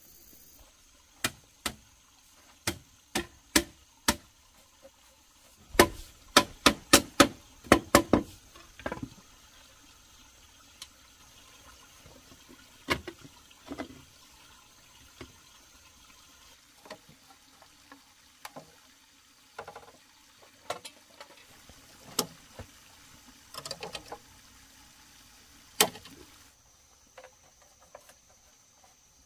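Sharp knocks and taps at irregular intervals, with a quick run of about eight about six seconds in, then scattered single strikes.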